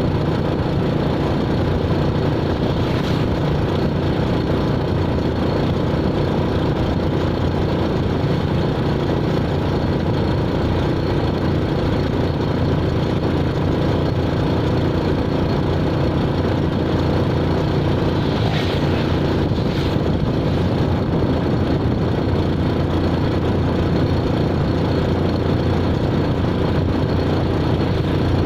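An engine running steadily with a constant drone, with two faint short noises about 3 and 19 seconds in.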